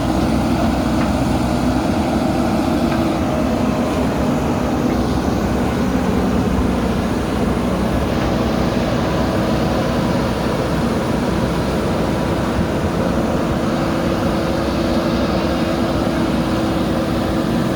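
JCB backhoe loader's diesel engine running steadily at a constant speed.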